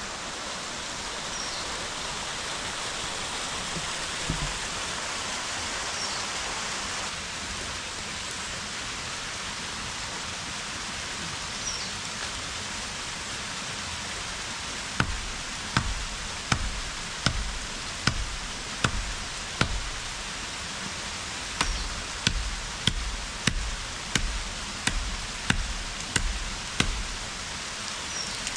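A run of chopping strokes as fodder is cut with a blade, a sharp chop about every three quarters of a second, in two runs with a brief pause between them, over a steady rushing background.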